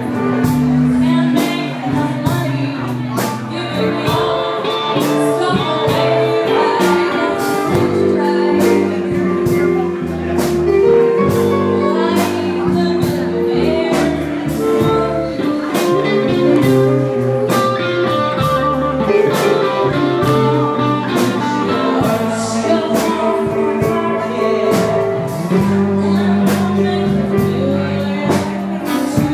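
Live blues band: a woman singing over electric guitars and keyboard, with a steady beat.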